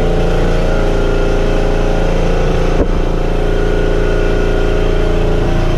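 A machine's motor running steadily at constant speed: a loud, even hum with several steady tones. There is one short knock about three seconds in.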